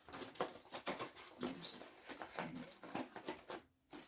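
Handling noise of dry suit glove and cuff parts: irregular clicks, taps and rustles, with a few short low sounds mixed in.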